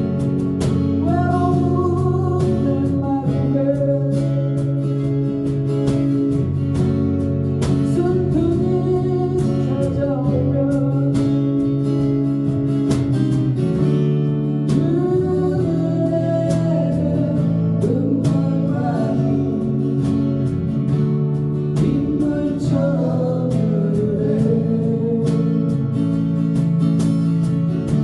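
A song sung by a voice with guitar accompaniment, held notes with vibrato over steady strummed chords.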